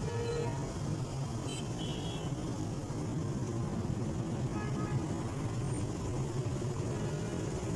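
Steady road traffic rumble, with a couple of faint short high tones about two seconds in and again about five seconds in.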